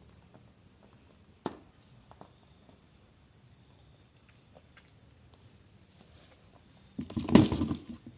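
Crickets chirping steadily in a faint, pulsing high trill, with a single click about a second and a half in. Near the end a loud burst of noise lasts about a second.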